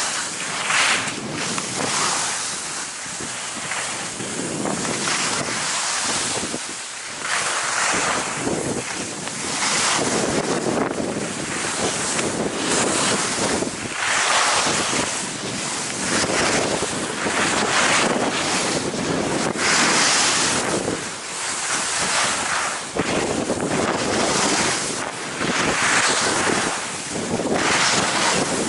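Wind rushing over the microphone of a moving camera, mixed with the hiss and scrape of edges on packed snow. It swells and fades every few seconds, with the turns down the slope.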